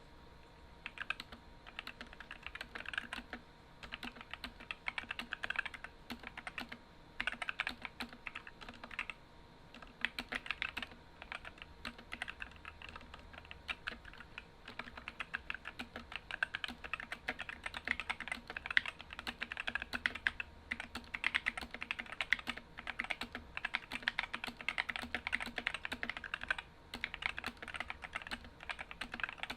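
Typing on a 60% mechanical keyboard with stock, unlubed Gateron optical red linear switches and ABS keycaps: quick runs of keystrokes clacking, broken by short pauses.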